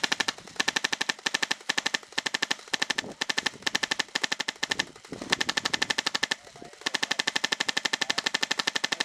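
HPA-powered airsoft light machine gun (Classic Army Stoner with a PolarStar Jack engine) firing in repeated full-auto bursts of rapid sharp shots, roughly fourteen a second, with a longer unbroken burst over the last two seconds.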